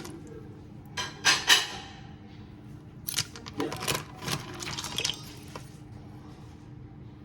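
Water splashing and sloshing in a handful of short bursts, fading away after about five seconds.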